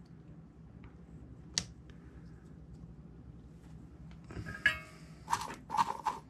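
Handling noise from small parts and wires being pulled off a quadcopter frame: a single sharp click about a second and a half in, then a few short scraping rustles near the end, one with a brief squeak.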